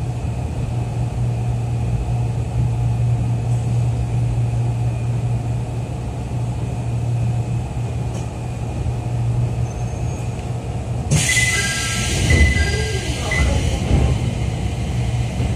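Jomo Electric Railway 700 series (ex-Keio 3000 series) electric train heard from inside the passenger car: a steady low hum and rolling rumble. About eleven seconds in, a sudden loud hiss of air with short high squealing tones and a few low thumps as the train stands at the station.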